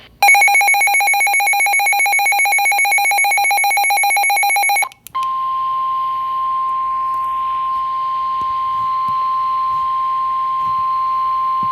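A weather-alert receiver's electronic alarm beeps rapidly for about four and a half seconds and cuts off. After a brief break, NOAA Weather Radio's steady single-pitch 1050 Hz warning alarm tone sounds over light radio hiss; the tone signals that a warning message is about to be read.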